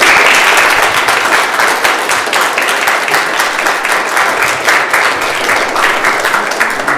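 An audience applauding with many hands, loudest at the start and slowly thinning toward the end.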